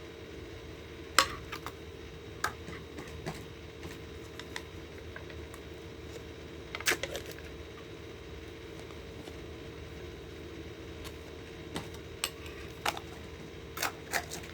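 Scattered sharp clinks and knocks of a spoon against a bowl or tub while ice cream is scooped and mixed in, about seven in all, the loudest about a second in and about seven seconds in. A steady low hum runs underneath.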